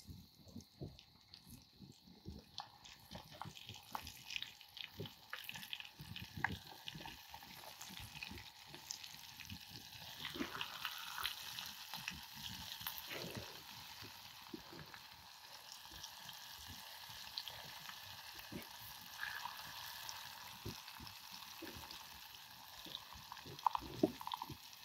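Fish frying in hot oil: a sizzle full of small crackles and pops, growing into a fuller, steadier hiss about ten seconds in.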